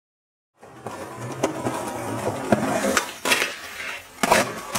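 Skateboard wheels rolling and the board grinding a stone ledge, with several sharp clacks of the board, the loudest near the end. The sound starts abruptly about half a second in, out of silence.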